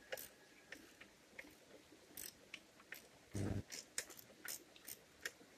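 Faint, irregular light clicks and taps of a 13 mm wrench and metal terminal hardware as the nut and wire are worked off the rear terminal of an automotive alternator, with one dull thump about three and a half seconds in.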